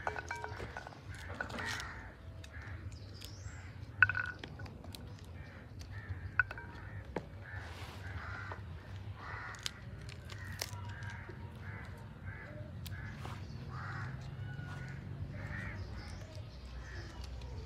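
Fresh green peas being shelled by hand: pea pods snapping and splitting open with scattered short sharp clicks, one louder click about four seconds in. A run of repeated animal calls goes on in the background.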